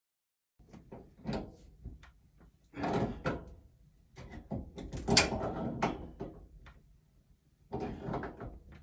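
Steam pipe fittings being worked by hand overhead: irregular bursts of metal scraping, clicking and knocking, the loudest about five seconds in.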